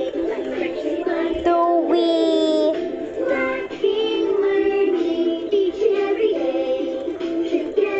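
Fisher-Price Linkimals Cool Beats Penguin musical toy playing a children's song through its small speaker: a synthetic, child-like singing voice over a bouncy tune, with almost no bass.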